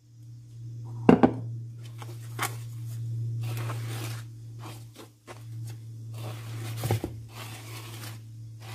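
A hand mixing flour into a wet batter in a wooden bowl by hand, making irregular rubbing and squishing sounds, with a couple of sharp knocks about a second in and another near seven seconds. A steady low hum runs underneath.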